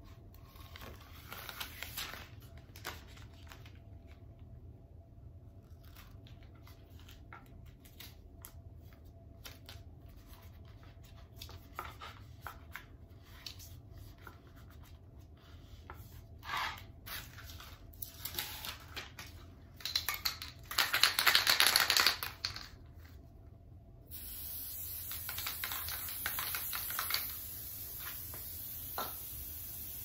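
Clear contact paper being peeled from its backing and rubbed flat by hand onto a small square of thin board: scattered rustles, crackles and scratches, with a louder hissing rustle lasting about two seconds a little over two-thirds of the way in.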